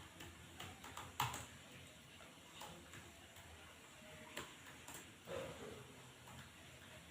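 Computer keyboard keystrokes, faint and irregular: scattered key clicks with one sharper click about a second in, then sparser presses.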